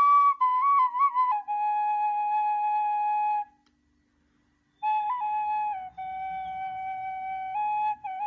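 Nay (reed flute) playing a slow solo melody of held notes with small ornaments. It breaks off for about a second around the middle, then resumes and steps downward.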